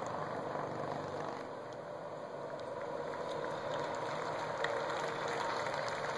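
Steady outdoor ambience of a large gathered crowd, with a faint steady hum and a few small clicks.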